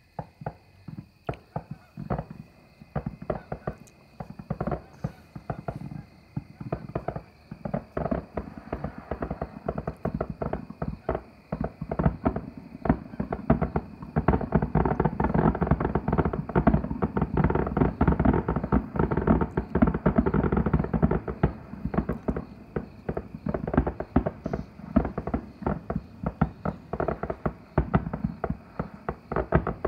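Fireworks display: a running string of bangs and crackles. About twelve seconds in it thickens into a dense rapid barrage for roughly ten seconds, then thins out again.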